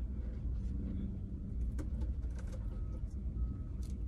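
Steady low background rumble, with a few faint clicks and taps scattered through it.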